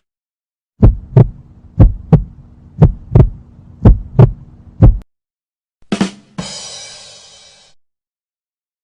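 Heartbeat sound effect: low paired thumps, lub-dub, about once a second, four and a half beats. About a second after it stops comes a short hit and then a fading tone.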